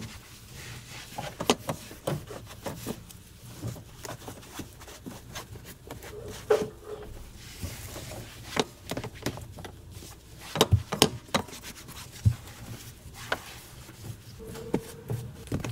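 Microfiber towel rubbing and scrubbing across a truck cab's floor mat and ribbed door-sill step, with irregular knocks and taps of hands and towel against the trim and a couple of brief squeaks.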